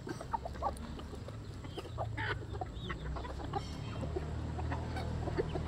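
A flock of hens and roosters clucking softly and intermittently while pecking at scattered feed, with small pecking clicks in between.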